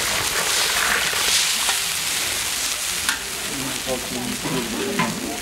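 Sumalak (sprouted-wheat porridge) cooking in a big cauldron and being stirred: a loud, steady sizzling hiss, with a few sharp knocks about one and a half, three and five seconds in.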